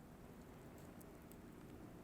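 Faint wood fire burning: a steady low rumble with a few small crackles and ticks, about a second in.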